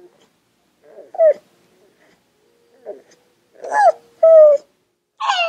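Old pug whining and crying in short pitched calls. The loudest two come around four seconds in, and a longer falling cry starts near the end. He is calling for attention: blind and deaf, he needs to be touched.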